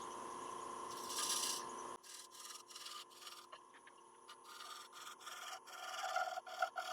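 Wood lathe running while a spear point scraper shear-scrapes a damson bowl: a short hissing cut about a second in, then a run of soft, repeated rubbing strokes against the spinning wood.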